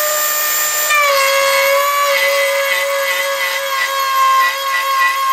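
Dremel rotary tool in a 335 plunge router attachment, mounted under a router table, running with a high, steady whine. About a second in the pitch dips slightly and then wavers as a flat, pilotless bit cuts a rebate in a strip of wood fed along the fence, with a rough cutting noise over the whine.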